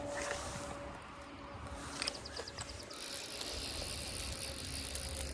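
A short run of quick clicks about two seconds in, typical of a fly reel's ratchet as line is pulled or wound, over a steady background hiss of moving water.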